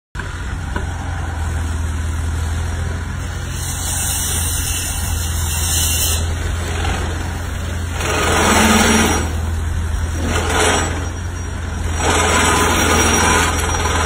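Gentec GE970 hydraulic plate compactor, hung from a crane boom, vibrating a wooden pile down, heard as a steady low hum from the machinery. Bursts of rushing noise come and go several times in the second half.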